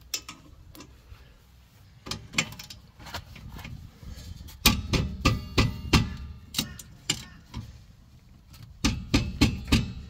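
Socket ratchet clicking in quick runs while a 14 mm brake caliper bolt is worked, busiest about halfway through and again near the end. The bolt turns its slide pin with it instead of loosening, so the ratchet alone will not free it.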